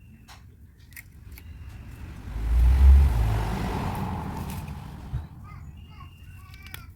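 A road vehicle passing by, swelling to a low rumble about two to three seconds in and then fading away over the next few seconds.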